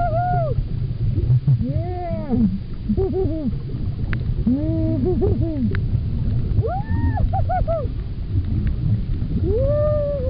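Humpback whale song carried through the water: a series of pitched calls, each rising and then falling, some in quick clusters of two or three, about every two seconds. Under the calls is a steady low underwater rumble.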